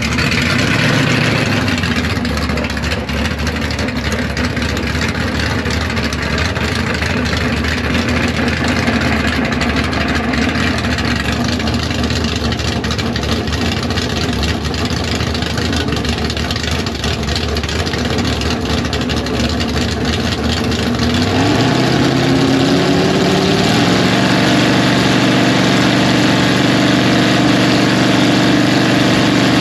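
Drag-racing car engines idling loudly, then about 21 seconds in brought up in revs over a couple of seconds and held at a steady higher speed, as a Stock or Super Stock car is held on the starting line before launch.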